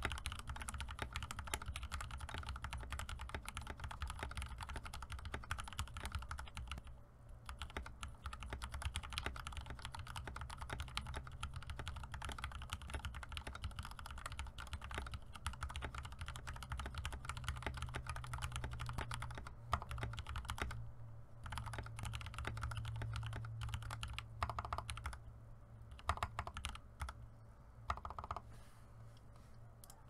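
Fast typing on a 60% custom mechanical keyboard with lubed Gateron Yellow linear switches, PBT keycaps and an aluminium plate in a clear plastic case: a steady clatter of keystrokes, with short pauses about 7 and 21 seconds in, and sparser strokes near the end.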